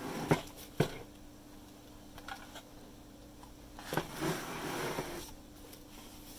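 Cardboard boxes being handled and slid across a table: two sharp taps in the first second, then a rustle of cardboard and tissue paper about four seconds in, over a faint steady hum.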